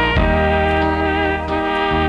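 Instrumental music: held chords changing every half second or so.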